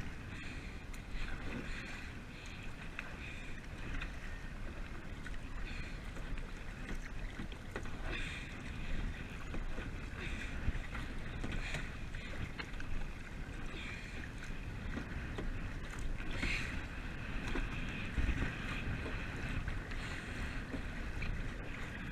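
Kayak paddle strokes splashing into the water every couple of seconds, over a steady low rumble of wind on the microphone.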